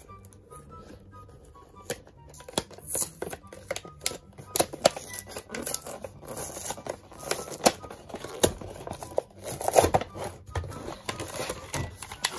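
Clear plastic blister pack crinkling and crackling as it is pried off its cardboard backing card and handled, in a stream of irregular sharp clicks.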